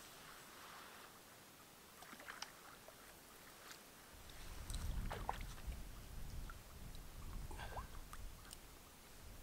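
Small splashes and drips of lake water as a fish is netted at the water's edge and the landing net is lifted out, over a low rumble that starts about four and a half seconds in.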